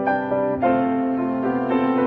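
Background music: soft piano playing slow, held notes.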